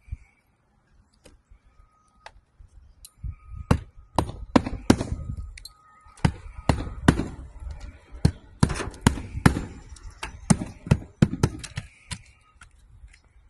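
A run of irregular sharp knocks and taps, starting about three seconds in and coming thick and uneven until near the end.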